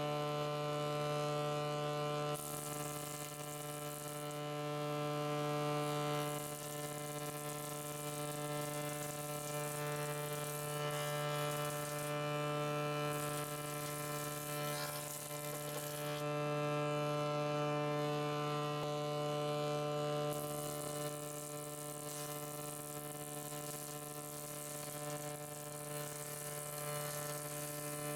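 Old 16-inch straight-knife jointer running with a steady, even-pitched hum. Several times a higher hiss rises and falls away as boards are fed edge-first across the cutterhead.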